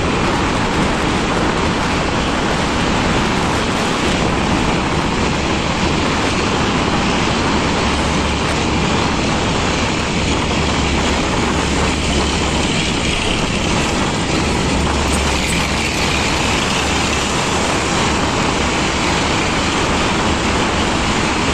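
Steady road and traffic noise inside a road tunnel, heard from a moving vehicle: tyre and engine noise echoing off the tunnel walls, with a deeper rumble swelling twice near the middle.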